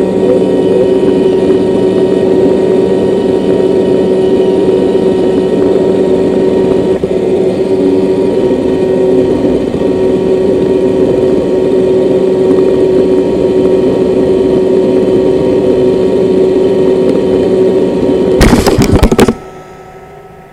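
Roomba robot vacuum running, a steady motor hum with brush and suction noise. Near the end come a quick cluster of loud knocks, then the motor cuts off abruptly.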